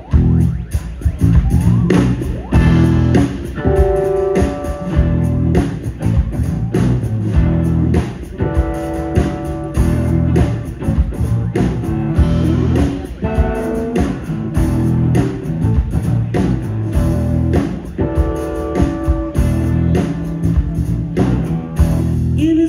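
Live rock band playing: electric guitar, bass guitar and drum kit, with a steady beat.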